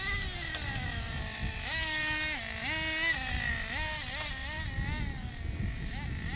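Small two-stroke nitro glow engine of a Team Associated TC3 radio-controlled touring car, revving up and down again and again as it is driven, its pitch rising and falling. The loudest bursts come about two seconds in and again near four seconds.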